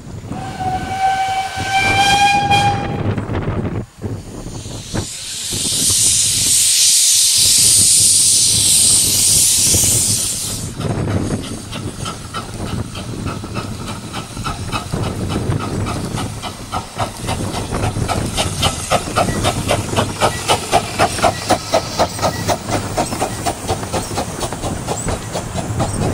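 Miniature 15-inch-gauge steam locomotive: the steam whistle blows for about two and a half seconds, then a loud hiss of steam for about five seconds, then rhythmic exhaust chuffs as it works the train away.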